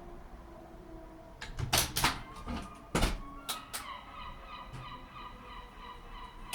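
Civil-defence siren winding down: a faint, slowly falling tone fading away. Several loud sharp knocks come about two and three seconds in, and a wavering high tone starts about halfway through.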